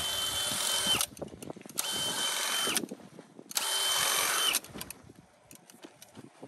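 Cordless drill driving the Quick Cut Greens Harvester's reciprocating cutting blade and sweeping brush as it cuts salad greens, run in three bursts of about a second each, the motor's whine dropping as each burst stops.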